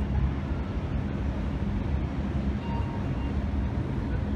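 Steady low outdoor background rumble, the general ambience of a large open courtyard, with no distinct events.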